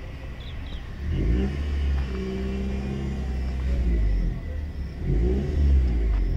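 A car engine revving up twice, about a second in and again near the end, over a steady low rumble.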